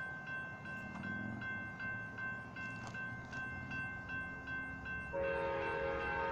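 Grade-crossing warning bell ringing steadily, about two and a half strikes a second. About five seconds in, the horn of an approaching Amtrak train starts sounding a held multi-note chord.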